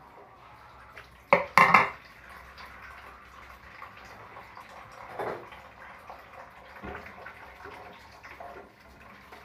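Kitchen tap running in a thin stream into the sink, with a ceramic plate clattering down onto the counter about a second and a half in, the loudest sound, followed by softer knocks and splashes of hands working in the sink.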